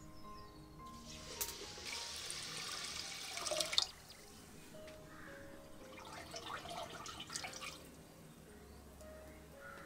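Water poured from a clay pitcher into a clay pot of raw rice for about three seconds, stopping suddenly, then hands swishing and rubbing the rice in the water to wash it. Soft background music with held notes runs under it.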